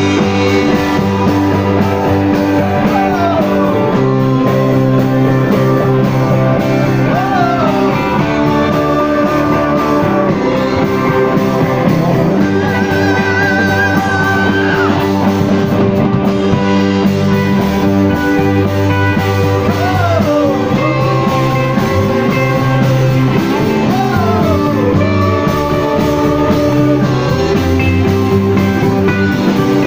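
Live rock band playing loud: electric guitar over bass and drums, with several bent notes and a long held high note about halfway through.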